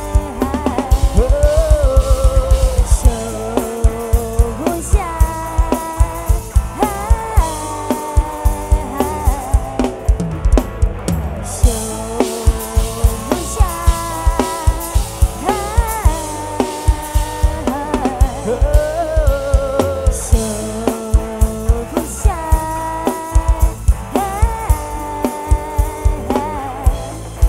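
A Thai rot hae (mobile sound-truck) band playing live. A drum kit keeps a steady kick-drum beat under a wavering melodic lead line. In the first three seconds there is a fast run of bass-drum hits.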